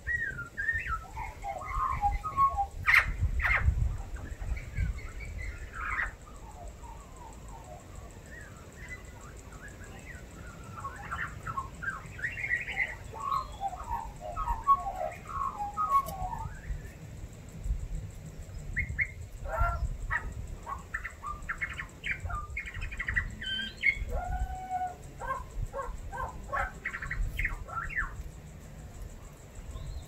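Australian magpie singing a varied, warbling song that mixes in mimicked calls of other birds. It comes in bursts of quick changing phrases, with short pauses between them.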